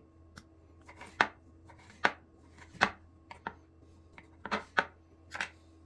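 Knife chopping an orange on a cutting board: a string of sharp, irregularly spaced strokes, about eight of them.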